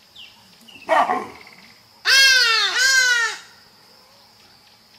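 Animal calls: a short call about a second in, then two loud yelping calls back to back, each falling in pitch and lasting well under a second.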